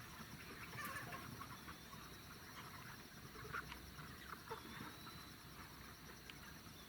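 Faint, scattered clucking of domestic chickens, over the steady pulsing chirr of insects.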